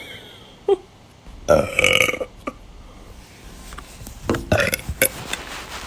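A woman burping: one long, loud burp about a second and a half in, then shorter burps a few seconds later.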